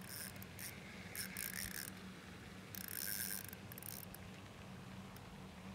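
Small fishing reel cranked in three short bursts, a fast clicking mechanical whir each time, over a steady low hum.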